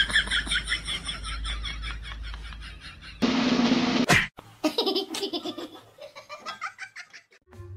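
High-pitched laughter in quick repeated bursts, followed about three seconds in by a short, louder noisy sound that ends in a sharp click.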